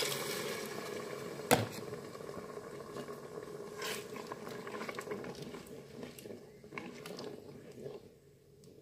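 Vegetable broth poured into the hot bowl of a Moulinex Cookeo multicooker over toasting rice and zucchini, sizzling and dying down. A sharp knock comes about one and a half seconds in, then a wooden spoon stirring the rice through the broth, with soft sloshing and light scrapes that fade toward the end.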